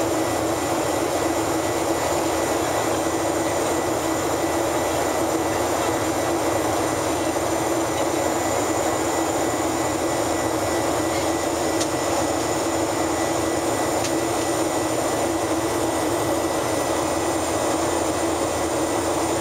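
Steady cabin noise of a Boeing 737-800 climbing after take-off: rushing air and the drone of its CFM56 jet engines, heard from inside the first-class cabin, with a steady low hum running under it.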